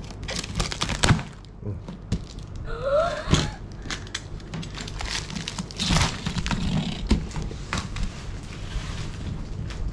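Cardboard box and black plastic wrapping being handled and torn open: rustling and crinkling with scattered knocks and thumps on the cardboard.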